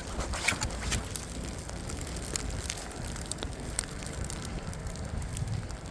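Footsteps crunching in snow, irregular sharp crackles over a steady low rumble of wind on the microphone.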